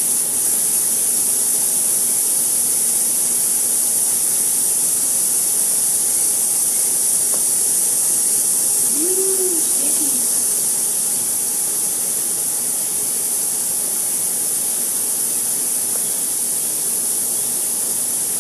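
Hot-air plastic welder blowing, a loud steady high hiss of air with a faint steady tone beneath it. The welder is heating to melt filler rod into a cracked plastic bumper.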